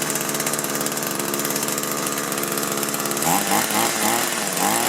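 Small two-stroke engine of an Echo hedge trimmer idling steadily.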